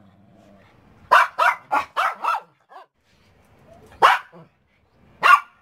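Pomeranian spitz dogs barking in excited greeting: a quick run of about five sharp, high barks, then two single barks more than a second apart.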